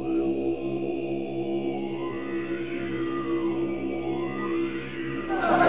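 Deep, steady droning chant of men's voices in the manner of Tibetan monastic chanting. High overtones glide up and down above the drone.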